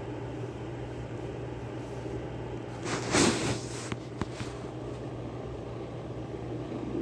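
A steady low hum, with a loud burst of rustling about three seconds in and a few small clicks just after, as the phone is moved over the blanket and kitten.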